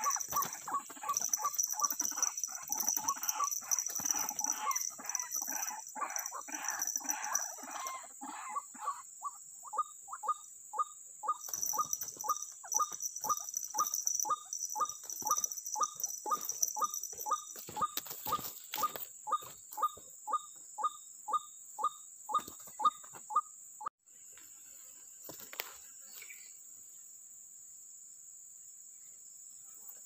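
White-breasted waterhens calling. First several birds' calls overlap in a dense chorus, then from about nine seconds in a single even run of short repeated calls follows at about two to three a second. The calls stop abruptly a little over twenty seconds in. A steady high insect buzz runs underneath.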